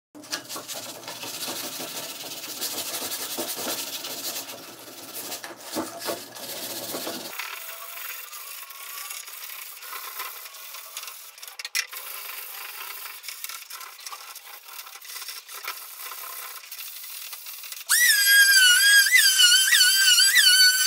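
120-grit sandpaper rubbed by hand over a wooden cabinet door, a rough scratchy rubbing. Near the end a Makita electric finishing sander switches on with a loud high-pitched whine that wavers in pitch as it is pushed across the wood.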